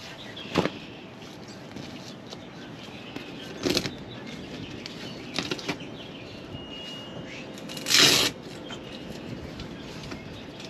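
Plastic UTV rear windshield and its Velcro straps being handled and fitted: a few short rustling, flapping noises, the loudest about eight seconds in.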